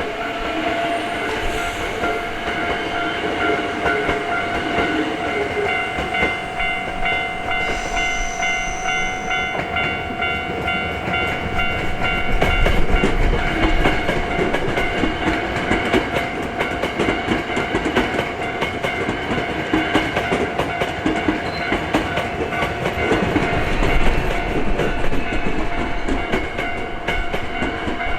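Level-crossing alarm ringing with repeating electronic tones while a Hankyu train rumbles and clatters over the crossing, the train noise swelling about halfway through and again near the end.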